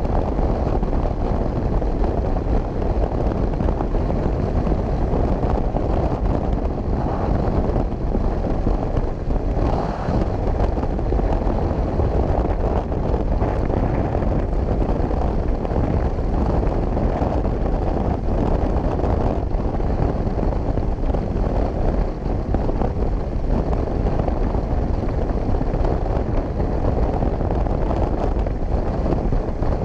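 Motorcycle riding at highway speed: a steady rush of wind buffeting the microphone, with the engine and tyre noise blended underneath.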